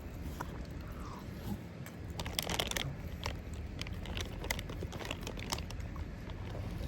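Close-miked eating of rotisserie chicken: biting and chewing, with a cluster of crunches about two and a half seconds in and a run of small wet mouth clicks later on.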